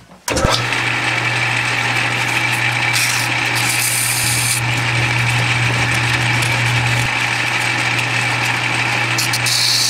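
Metal lathe starting up abruptly and then running steadily with a low motor hum. A hiss of emery cloth rubs against the edge of the bore of the spinning cylinder-head casting, louder about three to four and a half seconds in and again near the end.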